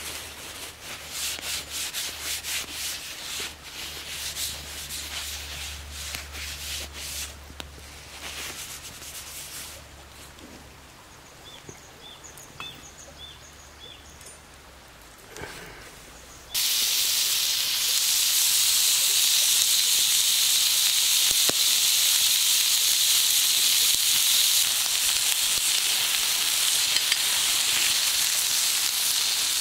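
Meat sizzling steadily on a hot steel griddle over a wood fire, starting suddenly a little past halfway as it goes onto the plate, and louder than anything before it. Earlier there is a run of clicks and crackles from the wood fire, then a few quieter seconds.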